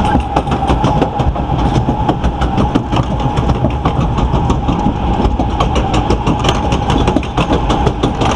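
Log flume lift-hill conveyor belt running under the boat as it carries it up the incline. A quick, irregular clatter of several clicks a second over a steady whine and a low rumble.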